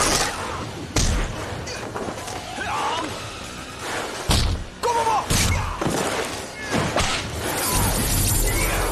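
Dubbed martial-arts fight sound effects: several sharp thuds and crashing hits over music.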